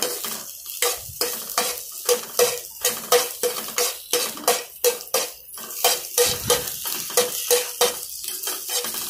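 A spoon stirring cut okra in a frying pan, knocking and scraping against the pan about three times a second. The pan gives a short ring on each stroke, over a light sizzle of frying.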